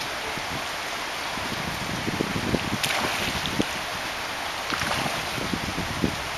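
Steady rush of flowing river water, with salmon splashing at the surface about three seconds in and again briefly near five seconds.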